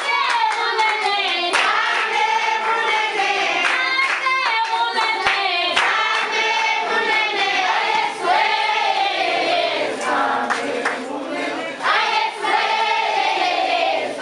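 A group of voices singing together, with hand clapping throughout.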